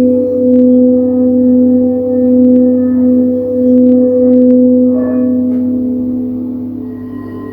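Quartz crystal singing bowls sounding: two sustained tones with a slow, wavering pulse, fading gradually, while a higher tone enters about five seconds in.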